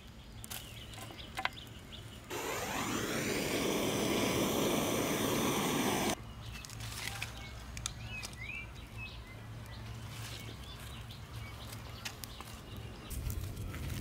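Small campfire of dry sticks crackling with sharp snaps as sticks are laid on it, and birds chirping now and then. A couple of seconds in, a loud rushing noise with a falling sweep starts abruptly, runs about four seconds and cuts off suddenly.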